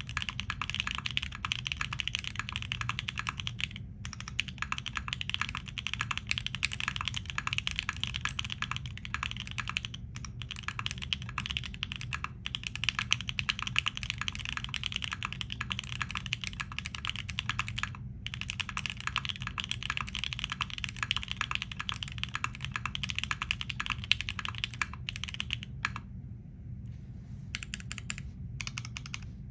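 Steady, fast typing on a custom mechanical keyboard with Alpaca linear switches, an FR4 plate and DCS ABS keycaps: a dense run of keystroke clicks, broken by brief pauses and a longer lull near the end.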